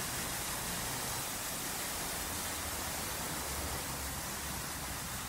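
Automatic car wash spraying water over a car: a steady, even hiss.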